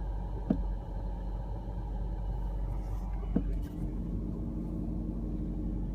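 Steady low hum like a fan running behind the dashboard of a BMW E34, with the stereo and air conditioning switched off, so its source is a mystery. Two faint ticks come about half a second and three and a half seconds in, and a faint steady tone joins from about halfway.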